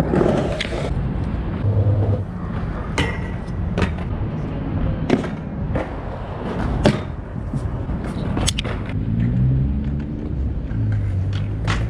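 Skatepark sounds: sharp, irregularly spaced clacks of wheels and decks hitting concrete, about eight in all, over a steady low rumble of city traffic and wind.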